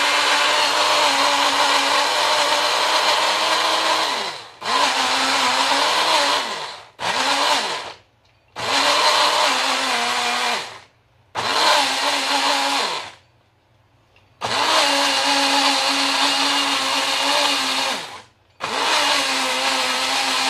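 JML personal blender pulsed on and off about seven times, each run lasting one to four seconds and dropping in pitch as the motor stops. It is grinding basil, parmesan and olive oil fine into pesto.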